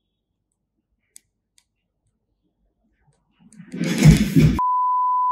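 A person falling to the floor with a loud crash lasting about a second, followed at once by a steady high censor bleep that cuts off abruptly after about a second.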